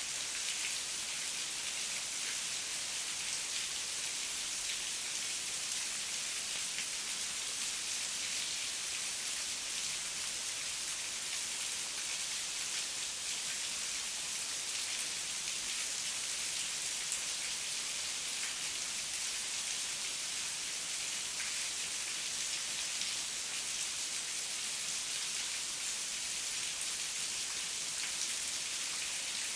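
Steady heavy rain, an even hiss of countless drops with fine tapping and no breaks.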